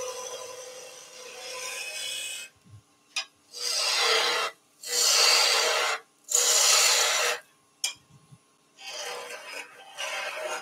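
Hand tool working a wooden blank on a woodturning lathe: continuous scraping at first, then three loud rasping strokes about a second each, then lighter scraping near the end.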